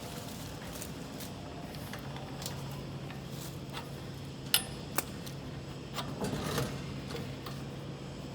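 Steady low machine hum that starts about two seconds in, with two sharp metallic clicks about halfway through and a short clatter a little later.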